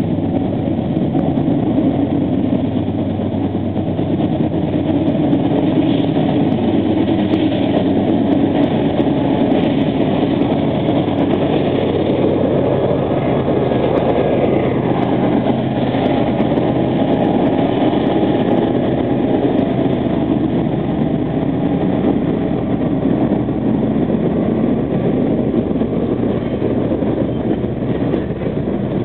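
A freight train of juice boxcars rolling past in a steady rumble, with the diesel engines of its two GE AC4400CW locomotives working hard up a grade.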